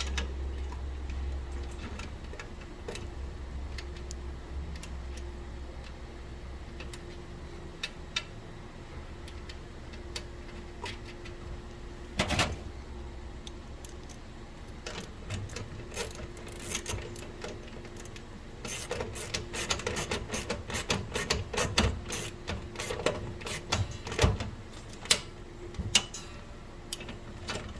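Metal clicks, taps and rattles of a replacement mailbox lock cylinder being fitted by hand, with its clip, nut and keys. There is a low rumble in the first few seconds, then scattered clicks, then a dense run of rapid clicking and rattling in the last third.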